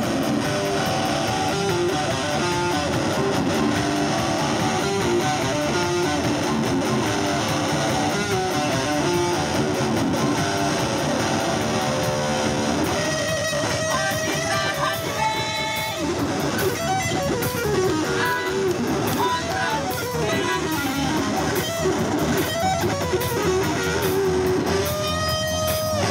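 A band playing live, with electric guitar to the fore over bass; the part gets busier about halfway through.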